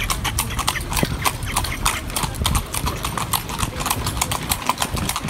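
Carriage horse's hooves clip-clopping on a paved street, several sharp, even hoofbeats a second over a low rumble.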